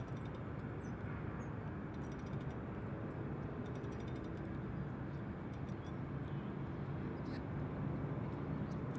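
Steady low mechanical rumble with outdoor background noise.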